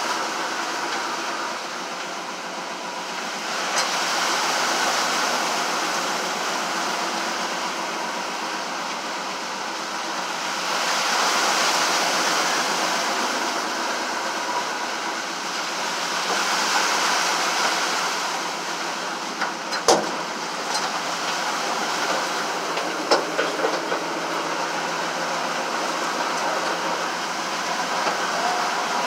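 A vehicle driving through floodwater, heard from inside the cab: steady engine and water noise that swells several times as the water rushes under and over the car, with a few sharp knocks about twenty seconds in.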